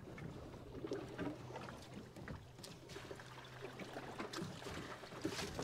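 Small fishing boat drifting: water lapping against the hull under a faint steady low hum, with scattered light knocks and clicks of gear on the deck, a few more of them near the end.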